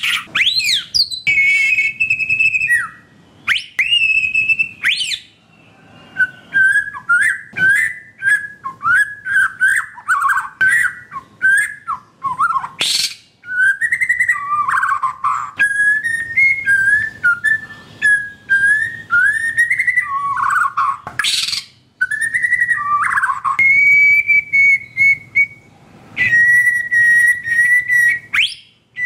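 White-rumped shama singing: a quick run of varied whistled phrases broken by sharp clicking notes, ending in long, level whistles.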